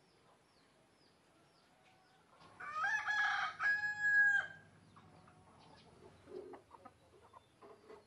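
Rooster crowing once about two and a half seconds in: a two-part call lasting about two seconds.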